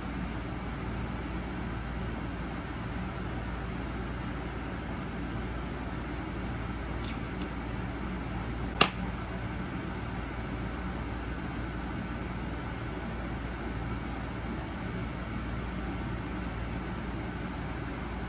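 Steady hum of an air conditioner running in a small room, with a few faint clicks and one sharp click near the middle.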